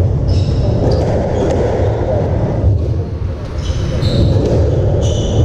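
Squash rally: players' court shoes squeaking on the wooden floor three times, with a few sharp smacks of the ball on racket and walls, over a steady low background rumble.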